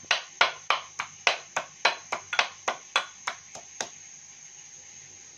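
Stone pestle (nora) pounding pieces of ginger to crush them: sharp, regular knocks about three a second, stopping about four seconds in.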